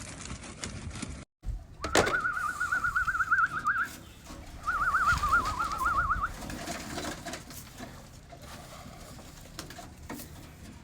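A bird calling twice with a fast warbling trill at a steady, fairly high pitch, each call about two seconds long, the second a little lower. A sharp click comes just before the first call.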